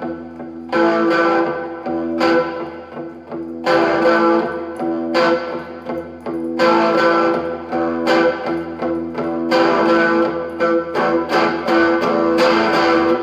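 1960s Supro Super guitar being strummed and picked through an amplifier, a run of chords with sharp attacks every second or so, ringing out over a steady low hum.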